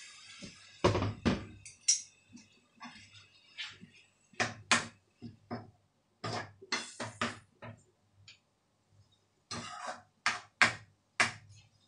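A heavy thump about a second in, then a metal spoon knocking and scraping in a frying pan in short bursts while a chicken curry is stirred.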